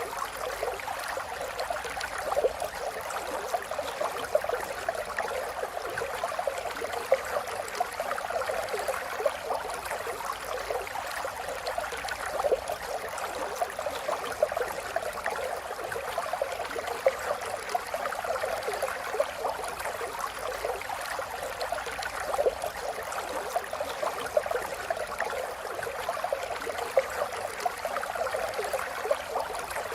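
River water flowing steadily, a continuous rushing with small splashes and gurgles throughout.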